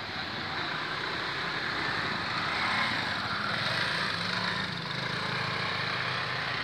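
Small motorcycle engines running as motorbikes ride past close by, the engine note swelling about halfway through, over a steady haze of road traffic.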